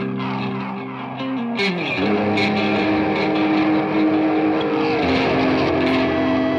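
Electric guitars playing the opening of a rock song: held, ringing notes that slide down in pitch about a second and a half in, then settle into new sustained notes.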